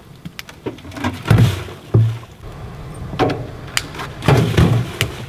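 Maple sap being poured from a plastic bucket into the boiling pan of a wood-fired evaporator: sharp knocks and thumps of the bucket against the pan, with two louder noisy bursts of pouring, one about a second in and one just past four seconds.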